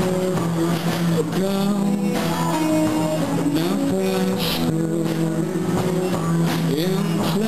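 A live band playing amplified: electric guitars and drums, with a melody of held notes that slide between pitches over a steady beat.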